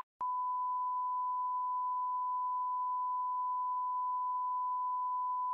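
Broadcast test-card reference tone: a single steady pure beep held at one pitch, starting a fraction of a second in after a brief blip.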